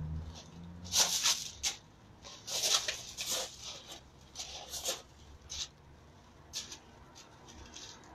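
Feet shuffling and crunching on loose gravel in short, irregular scrapes, the busiest stretch about a second to three and a half seconds in, then sparser.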